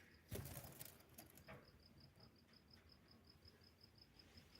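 Near silence with a faint, evenly repeated high chirp, about four or five a second, like a cricket; a soft rustle about a third of a second in.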